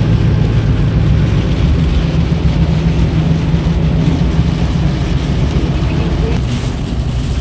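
Steady road noise inside a moving car's cabin: tyres running on a wet highway over a low, steady engine hum.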